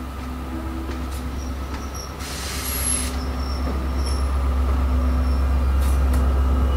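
Pair of Class 73/9 electro-diesel locomotives running light on their MTU diesel engines, a deep steady engine hum growing louder as they pass close by. A faint high squeal comes from the wheels on the curving track.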